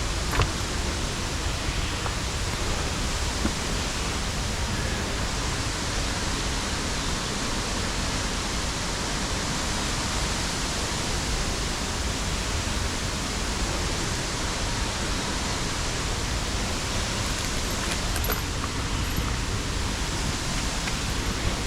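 Steady rush of water cascading through a mountain gorge, even and unbroken, with a few faint clicks and taps over it.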